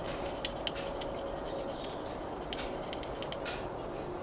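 Cocktail stick scratching and rubbing against the side of a model locomotive's body as a printed number transfer is worked off, giving irregular light scratchy clicks.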